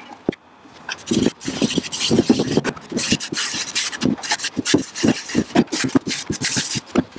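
A cloth rag wiping Danish oil onto the side of a wooden box, in quick, uneven rubbing strokes across the wood. A couple of sharp taps come near the start.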